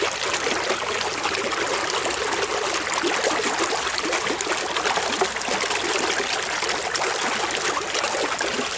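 Shallow running water trickling and splashing steadily, stirred by a hand net being worked through it.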